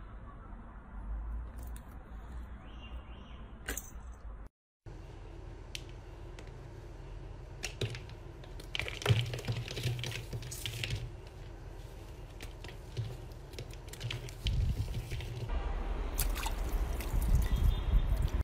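Hands squishing, pressing and pulling apart slime: sticky, wet squelches with crackling clicks, in several short clips cut together, loudest near the end.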